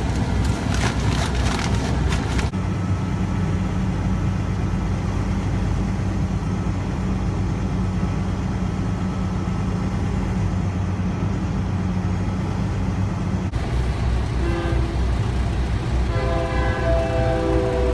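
A brief crinkle of snack packets, then the steady road-and-engine drone of a vehicle on the highway. Near the end a train horn sounds, several steady tones held together, as a light-rail train passes a level crossing.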